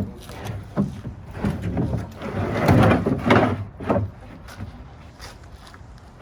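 Wooden drawer of a homemade truck-bed toolbox being slid along its runners, scraping, with a few knocks as it meets its stops; the longest, loudest slide comes about halfway through.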